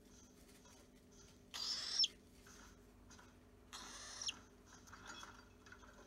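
Cockatiel giving two short, high calls about two seconds apart, each ending in a quick downward slide.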